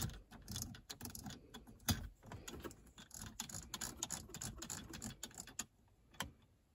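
Rapid, irregular plastic clicking from the ESR HaloLock car vent mount as its hook is wound back in by hand to clamp onto the air vent. The clicking stops about five and a half seconds in, with one more click shortly after.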